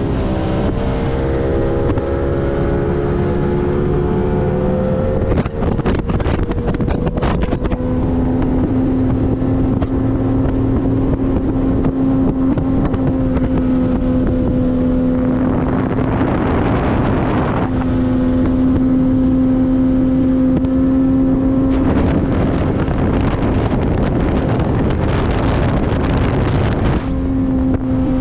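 Yamaha 70 hp three-cylinder two-stroke outboard running at speed. Its pitch rises over the first few seconds and then holds steady. Twice, for a few seconds, wind rushing over the microphone nearly drowns out the engine note.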